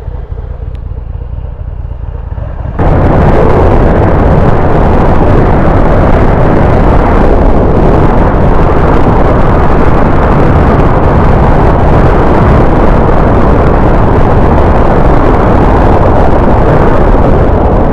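Motorcycle engine running at low speed, then about three seconds in a sudden change to loud, steady wind rush buffeting the microphone at highway speed, with the engine buried underneath.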